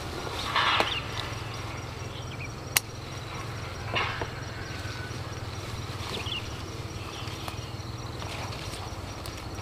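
Chili pepper plants rustling as peppers are picked by hand: a brief rustle under a second in and another about four seconds in, with one sharp click a little before three seconds. Under it runs a steady low hum with faint insect and bird calls.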